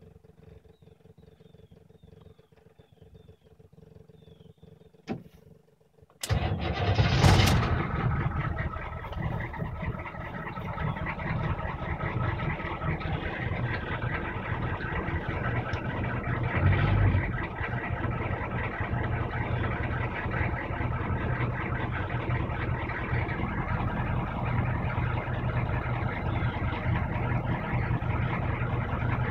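1982 Chevrolet K5 Blazer's 6.2-litre V8 diesel cold-starting on its glow plugs: a faint wait with a click, then about six seconds in it cranks and catches almost at once. It settles into a steady diesel idle, with a brief rise in engine speed around seventeen seconds.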